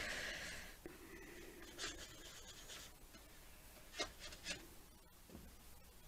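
Stiff bristle brush scratching across canvas as it spreads acrylic paint in back-and-forth strokes. The first stroke, right at the start, is the loudest, with fainter strokes about two seconds in and a couple of short ticks later.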